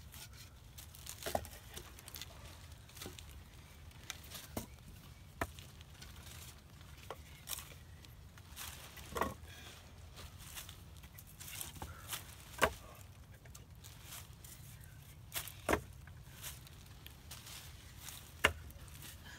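Pieces of cut firewood knocking against each other as they are stacked into a log wood store: irregular sharp wooden knocks every second or two, a couple of them louder.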